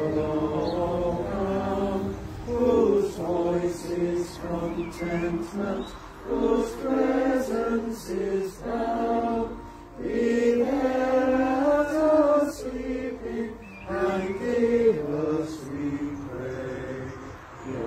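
A small congregation singing a hymn together, holding notes in phrases with short pauses between lines.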